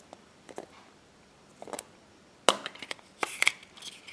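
Thin milk-chocolate shell of a Kinder Surprise egg being cracked open by hand: a few sharp snaps and crackles, the loudest about two and a half seconds in, then a quick cluster of small cracks as the shell comes apart around the plastic capsule.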